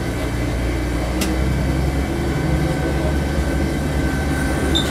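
Diesel railcar of the Sanriku Railway 36-100 series pulling away from a station: the engine runs under load with a steady low hum as the car gathers speed, with a thin steady whine above it. A single short click about a second in.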